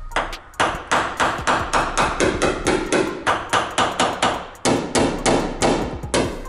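Hammer tapping repeatedly on the dented roof panel of a 2007 Ferrari 612, about three to four quick blows a second with a short break about four and a half seconds in. The blows knock down a raised ridge in the roof metal during dent repair.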